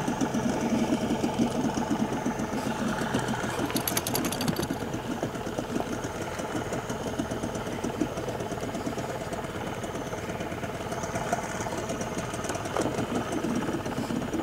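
Small boat motor running steadily at low speed, a fast even pulsing chug. About four seconds in there is a brief rapid clicking.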